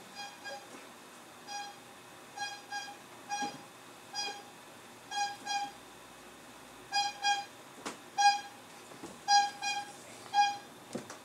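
A horn tooting over and over in short toots, many of them in quick pairs, at an uneven pace; a sharp click about eight seconds in.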